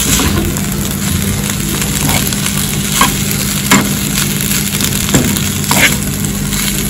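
Fried rice sizzling in a frying pan while a metal spoon stirs and turns it. Several sharp scrapes and knocks of the spoon against the pan come through the steady sizzle.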